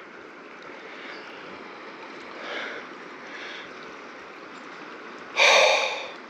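Steady rush of flowing river water, with one loud, breathy gasp from a person near the end.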